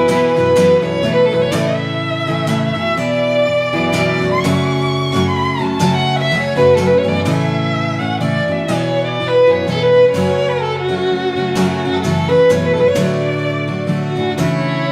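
Instrumental break: a fiddle plays a melody of long held notes with sliding pitch over a strummed guitar.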